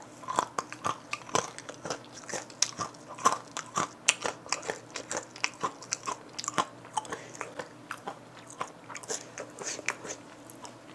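Close-up crunchy chewing of spicy coated peanuts: a rapid run of crisp crunches that becomes sparser over the last few seconds.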